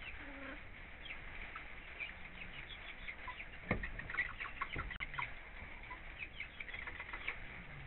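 Chickens making many short, soft clucks and chirps, with a sharp thump about four seconds in and a lighter one a second later.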